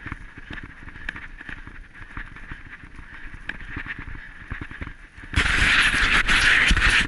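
Irregular small knocks and rattles from an action camera jolting along a dirt trail, over a steady hiss. About five seconds in, a loud, rough rubbing noise on the camera's microphone lasts nearly two seconds as something presses against the lens, and cuts off just before the end.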